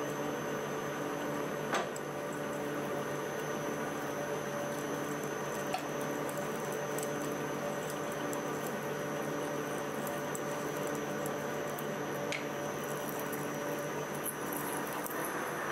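DIY CNC mill spindle running a twist drill into a metal block: a steady cutting hiss with a thin high motor whine. A few short sharp ticks come through, about two seconds in, near six seconds and near twelve seconds.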